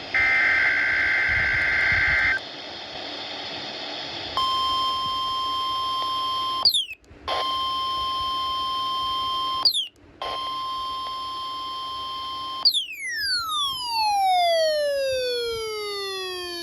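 NOAA Weather Radio weekly test signalling: a burst of the digital SAME header's warbling data screech, then about two seconds of radio static, then the steady 1050 Hz warning alarm tone in three bursts of about two and a half seconds, each cut off with a quick falling chirp. Near the end a long, buzzy tone glides steadily down in pitch.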